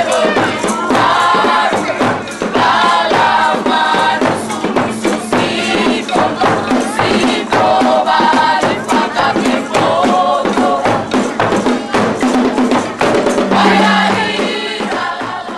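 Traditional Nias welcome-dance music: a group of voices singing in chorus in repeated phrases, over sharp percussive beats.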